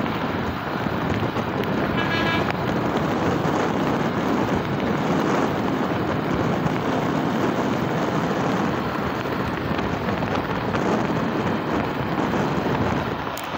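Steady wind and engine noise from a motorcycle riding along a road, heard from the rider's seat. A short horn beep comes about two seconds in.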